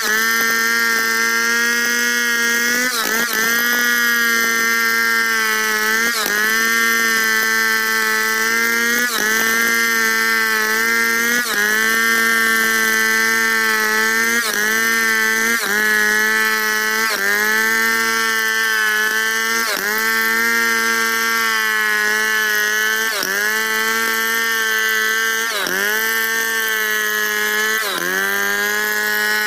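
Large Stihl two-stroke chainsaw at high revs, ripping lengthwise through a log. Its pitch sags briefly and recovers about every two to three seconds as the cut loads it.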